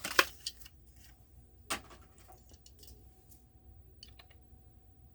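Plastic blister packaging and a die-cast toy car being handled: a quick cluster of sharp crackles and clicks at the start, a single sharp click under two seconds in, then scattered faint clicks.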